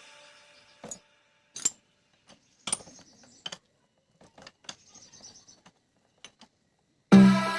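Scattered small metallic clicks and clinks of tools and engine parts being handled, a dozen or so short ticks spread over several seconds. Electronic background music with a beat cuts in near the end.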